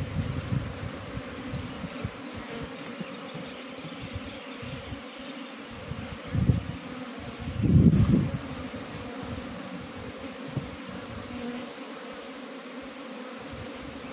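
A honeybee colony buzzing steadily around an open hive as its comb is handled. Two low rumbles break through, one about halfway through and a louder one shortly after.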